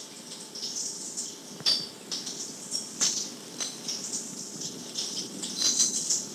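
A baby's toy rattle being shaken and knocked about in irregular bursts, with a few sharp clicks and bright little jingling tones, heard off an old cassette tape over a steady tape hiss.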